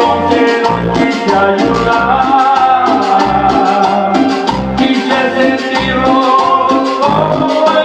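Cumbia music playing: a steady, evenly pulsing bass beat under melody lines, with shaken percussion on top.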